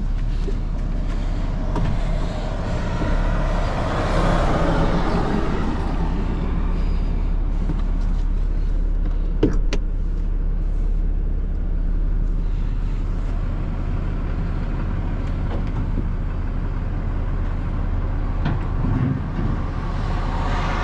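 A truck engine runs with a steady low hum while vehicles pass by on the highway, one about four seconds in and another near the end. A single sharp click comes near the middle.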